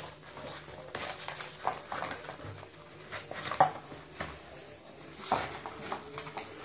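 A dog nosing and tugging at crumpled newspaper and a paper tray: paper crinkling and rustling in irregular bursts, with a sharp crackle about three and a half seconds in and another near five and a half.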